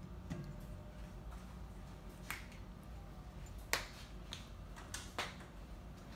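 A handful of short, sharp clicks and light knocks from a spoon and seasoning container being handled, the loudest about three and a half seconds in, over a steady low hum.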